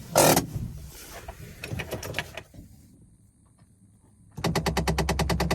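A sharp click, then about four seconds in a rapid, even knocking starts, about ten knocks a second, from the dashboard of a 2017 petrol GAZ Sobol van when the ignition is switched on. Its cause is unknown to the owner: not the heater, which is off.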